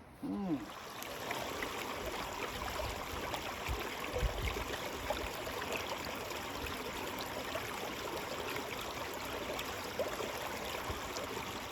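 Creek water flowing steadily, a continuous rushing wash, with a low thump about four seconds in.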